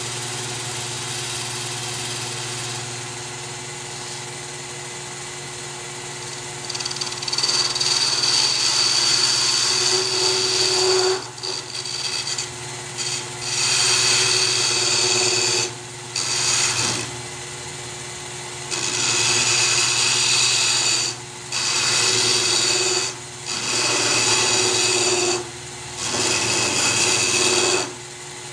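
A blade trimming a layered leather cue tip: a series of loud bursts of high scraping, each one to a few seconds long, starting a few seconds in, over a steady low hum.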